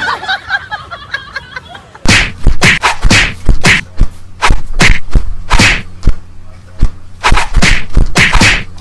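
A rapid, irregular run of sharp smacks, about two or three a second, from a cat swatting at a small dog that keeps jumping up at it.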